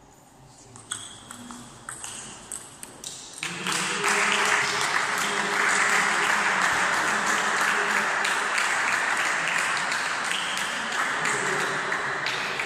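Table tennis ball clicking sharply off bats and table in a short rally. Then, from about three and a half seconds in, steady applause that greets the match-winning point.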